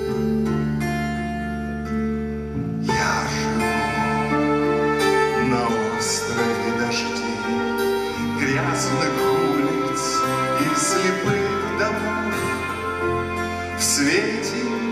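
Music: the slow instrumental accompaniment of a ballad duet, held chords that fill out into a fuller arrangement about three seconds in.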